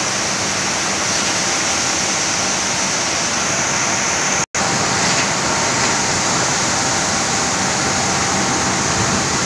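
Rice milling machinery running: a steady rushing noise with no rhythm. It drops out for an instant about halfway through.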